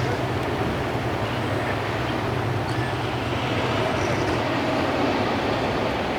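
Steady low engine rumble under an even wash of outdoor noise, unchanging throughout.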